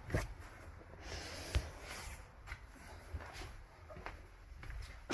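Quiet workshop room tone with faint handling noises: a few light clicks and rustles.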